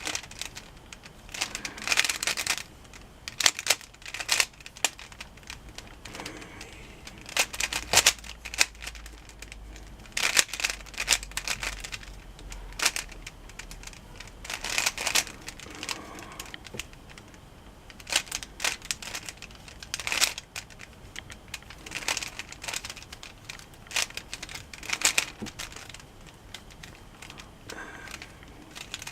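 Plastic Rubik's cube being turned by hand: quick clusters of clicking, rattling layer turns with short pauses between them.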